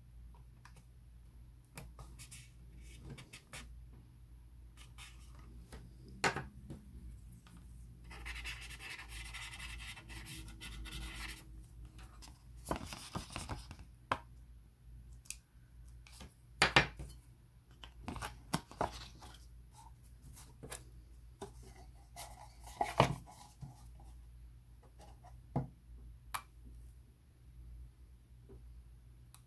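Close handling sounds of sticker work on a plastic model cup: a hobby knife scratching on a sticker sheet and tweezers tapping against plastic, heard as scattered small clicks and taps. A longer stretch of rustling scraping comes about eight seconds in.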